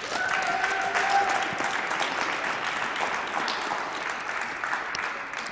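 Audience applauding, a dense patter of many hands clapping that thins out near the end, with a brief high call over it in the first second.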